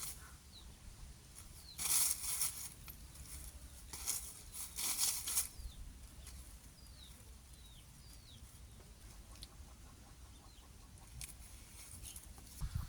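Free-range chickens: two short bursts of rustling noise about two and four seconds in, with faint, short falling chirps scattered throughout. No crow.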